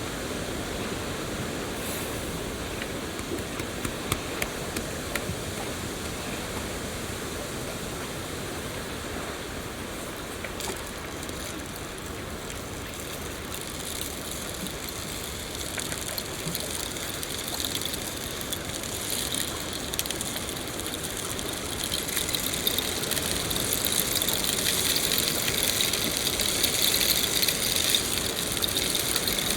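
Rain falling steadily, a continuous hiss with scattered sharp drop ticks, growing louder and hissier about two-thirds of the way through.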